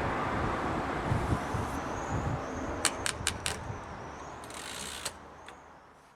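Imperial 55 typewriter mechanism clicking: a quick run of four sharp clicks about three seconds in and a couple more later, over a steady rushing background that fades out at the end.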